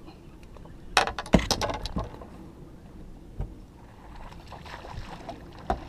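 A quick run of sharp knocks and clatter about a second in, then a few single knocks: gear being handled on a fishing boat as a bass is played and a long-handled landing net is brought out.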